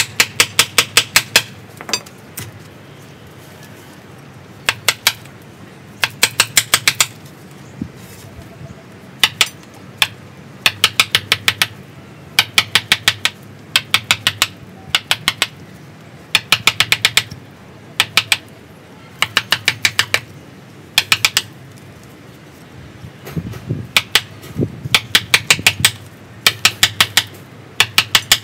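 Hand chisel being hammered into the wood at the top of a bonsai trunk: quick runs of sharp metallic taps, several in a row, with short pauses between.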